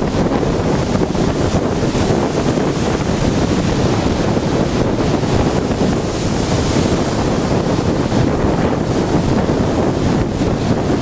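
Storm waves breaking against a sea groyne, a dense, steady roar, with strong wind buffeting the microphone.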